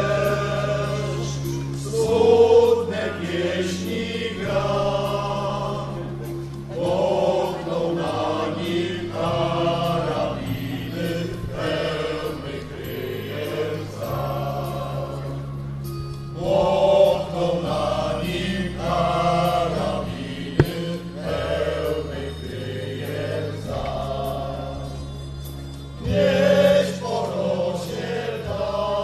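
Choral singing over held low accompaniment notes that change every couple of seconds, sung phrase by phrase.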